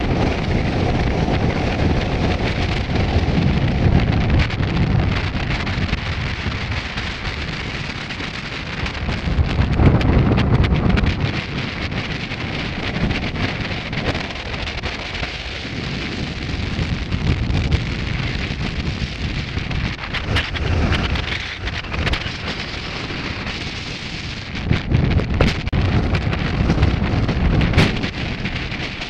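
Strong gusty wind buffeting the camera microphone: a low rumble that swells and eases with each gust, with scattered crackles.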